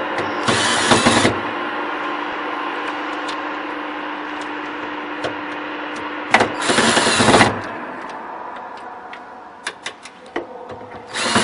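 A power tool run in three short bursts of about a second each, over a steady hum that slowly fades. Scattered light clicks come near the end.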